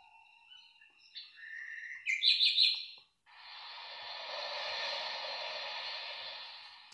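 Alarm-clock birdsong tone playing: faint whistles, then a loud run of about four quick chirps. It cuts off abruptly after about three seconds, and a steady rushing sound from the next alarm tone follows, swelling and easing off.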